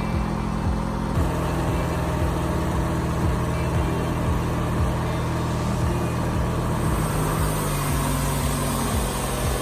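An engine running steadily with a low, even hum and a regular pulse; its note shifts slightly about a second in and again near the end.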